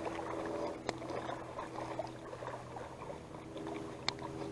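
Plastic fish-lip gripper clicking twice, about a second in and near the end, over a steady low hum.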